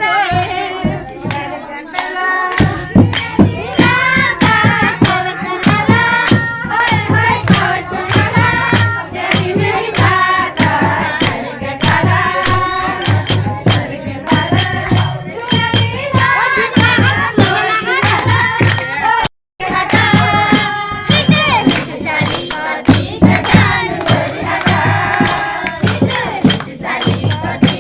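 Kumaoni Holi song: voices singing over a steady, quick beat of hand percussion with jingling tambourine-like strikes. The sound drops out for a moment about two-thirds of the way through, then the singing and beat carry on.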